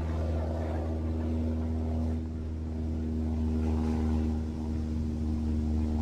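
A steady low engine drone with a constant pitched hum above it.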